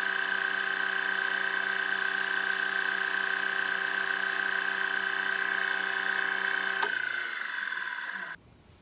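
Bench sander motor running with a steady hum, then switched off about seven seconds in, its pitch falling as it winds down before the sound cuts out.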